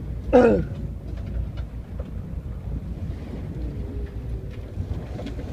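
Steady low rumble of a fishing boat under way, with wind buffeting the microphone. About half a second in comes one short, loud cry that falls in pitch.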